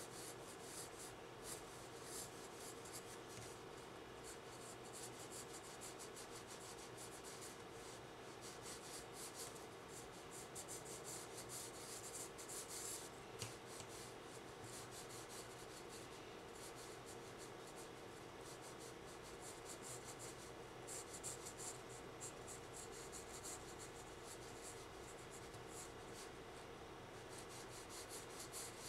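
Graphite pencil scratching on sketchbook paper in many quick hatching strokes, shading a drawing. The strokes come in busier flurries in places.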